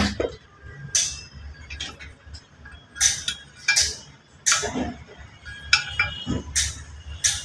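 Sharp metallic clinks and taps, about nine, irregularly around one a second, as steel parts are handled and fitted onto a car's front shock absorber strut.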